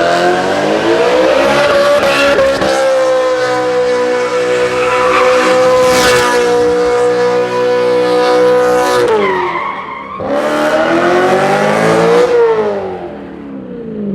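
BMW M3 engine held at high revs while drifting, with tyres squealing. The engine note holds steady for several seconds, drops off, revs up again and falls away near the end.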